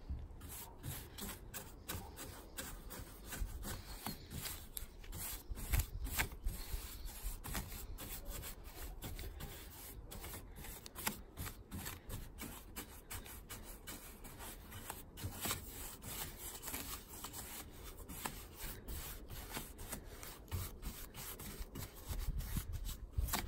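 Bristle paintbrush scrubbing paint onto a wooden lattice trellis fence panel: many short, irregular scratchy strokes of bristles against wood.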